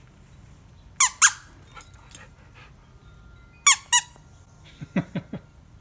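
A rubber dog-toy squeaker squeezed twice in quick succession, and again in another quick pair a few seconds later: high, wavering squeaks used to get a dog's attention. A few shorter, lower sounds follow near the end.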